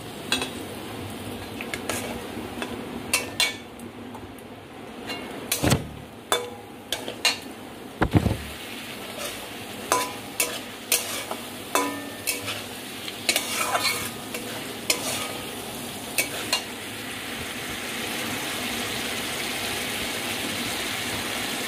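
A flat metal spatula scraping and clanking against a metal kadai as potatoes in spice paste are stirred, over a steady sizzle of the masala frying in oil: the paste is being fried down until it dries and starts to release oil. The scrapes and clanks come irregularly, then stop near the end, leaving only the sizzle.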